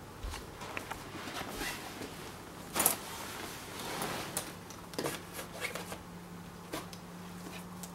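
A few footsteps, then a handbag set down on a bed with a thump a little under three seconds in, followed by scattered small clicks and rustles as the bag is opened and searched by hand.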